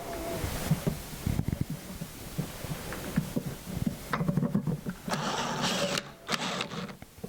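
Drill boring a handle hole through a hardware jig's bushing into a cabinet door, running unevenly with knocks and rattles, louder for a spell past the middle.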